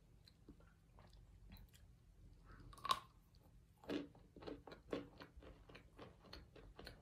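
A piece of baked cornstarch brick bitten with one sharp crunch about three seconds in, then chewed with a steady run of small crunches, about two to three a second.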